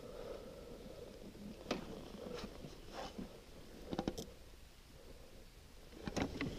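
A few faint, scattered clicks and knocks from fishing tackle being handled, over a quiet steady background.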